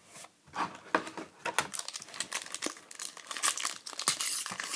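Foil wrapper of a 2011 SP Authentic football card pack crinkling and tearing as it is ripped open: a quick run of crackles starting about half a second in and growing busier toward the end.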